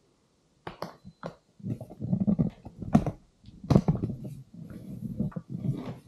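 Corded steam mop pushed across a hard floor: a few sharp clicks about a second in, then uneven low rubbing and rumbling in strokes, with a couple of knocks.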